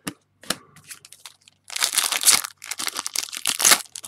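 Trading-card pack wrapper crinkling and tearing as it is opened, after a few short taps and clicks in the first second.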